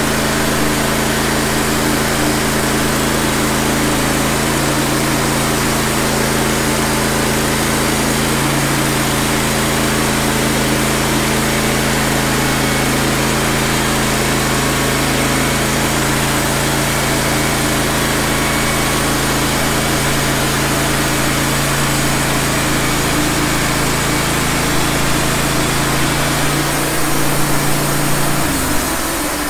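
Wood-Mizer LT15 band sawmill running steadily, its engine-driven band blade cutting along a pine log. The engine note shifts and briefly gets louder about two seconds before the end.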